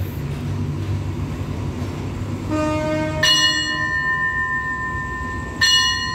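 A station bell is struck twice, about three and five and a half seconds in, each strike giving a clear high ringing tone that lingers; a lower ringing tone sounds just before the first strike. At Thai railway stations this bell is the departure signal for the waiting train. The low hum of the standing train runs under the first half.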